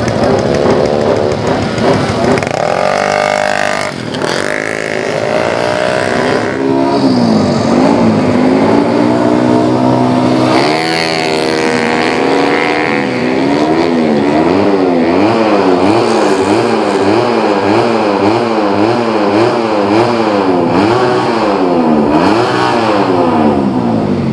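Yamaha Mio J scooter's single-cylinder four-stroke engine, bored out to 130cc for racing, revving hard over and over. The pitch climbs and drops in long sweeps, then in quick blips about once a second through the second half, as the new engine is being tuned.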